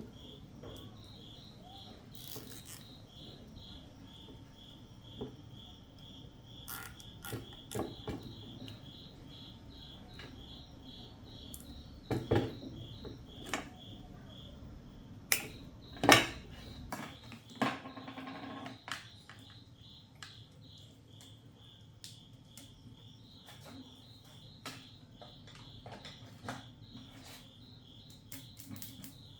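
Scattered sharp clicks, taps and clatter of small hard objects being handled, loudest about twelve and sixteen seconds in. Beneath them runs a steady high chirping that pulses about three times a second.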